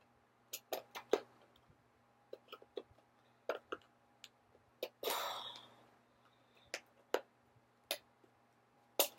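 Hands working at taped plastic packaging: scattered clicks and taps, and about five seconds in a short scraping rip as the tape is cut or torn.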